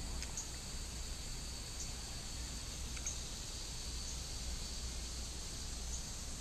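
Steady high-pitched chorus of insects trilling, with a few short, high chirps scattered through it.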